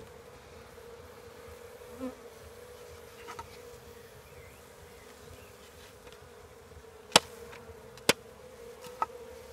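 Honeybees buzzing in a steady hum around an open Apidea mini-nucleus hive. Near the end come two sharp taps about a second apart, then a lighter one: the hive's lid being tapped to knock clinging bees off.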